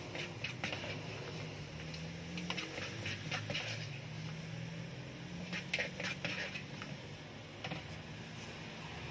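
Spoon scooping and scraping seasoned sweet corn kernels in a plastic bowl and tipping them into a foam cup, heard as a few short bursts of clicking and scraping. A steady low hum runs underneath.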